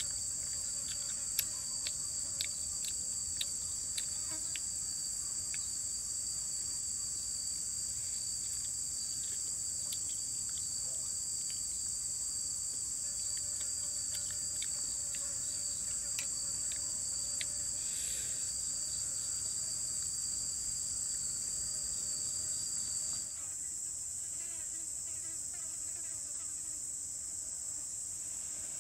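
Steady high-pitched drone of forest insects. A second, lower insect tone cuts off suddenly about 23 seconds in, and a few faint clicks sound in the first ten seconds.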